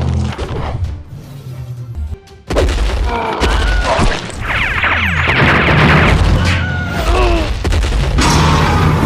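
Cartoon fight sound effects over background music with a steady bass beat: a sudden boom about two and a half seconds in, then crackling electric zap effects.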